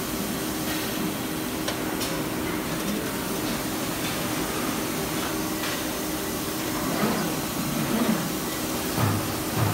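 Steady machine hum and hiss of an Amada Astro-100 robotic press brake cell running, with a steady low tone underneath. There are a couple of light clicks about two seconds in and several dull thuds in the last three seconds.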